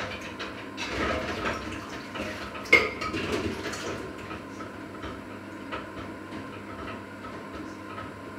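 Dishes clattering in a kitchen sink during washing-up, with one sharp clink about three seconds in, then quieter, scattered knocks.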